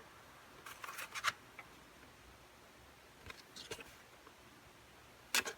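Thin cardboard picture cards being handled and slid against each other, in three short rustling scrapes.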